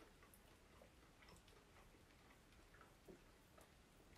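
Near silence with faint, scattered small mouth clicks of a person chewing food with his mouth closed.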